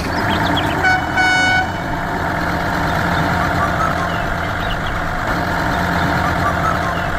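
Truck engine running steadily, with two horn toots about a second in, a short one followed by a longer one.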